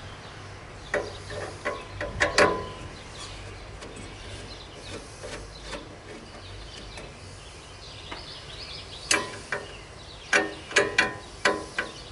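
Hand-tool clicks and knocks against a lawn tractor hood and its plastic grill as the grill is worked loose by hand: a few sharp clicks about one to two seconds in, then a quicker run of them near the end.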